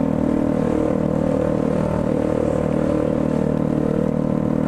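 Motorcycle engine running steadily at low speed, holding an even pitch, heard from the rider's seat.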